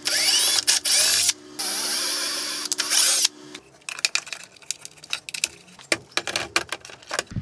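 Cordless drill-driver run in two bursts against an aluminium mounting panel, its motor whine rising as it starts; after about three and a half seconds, only light clicks and knocks of parts being handled.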